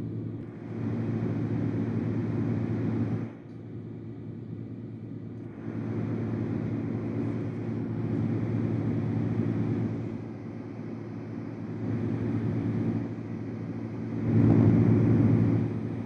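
LectroFan noise machine playing deep brown noise into an Audio-Technica AT2020 microphone. The hiss swells and dips several times as the machine is carried around the microphone, quieter where the microphone rejects it off-axis, and loudest about a second before the end.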